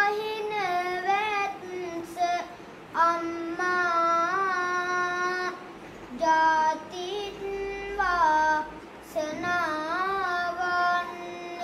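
A young boy monk's solo voice chanting kavi bana, the Sinhala Buddhist verse sermon, unaccompanied. He holds long notes with wavering, ornamented turns, in phrases broken by short breaths about every two to three seconds.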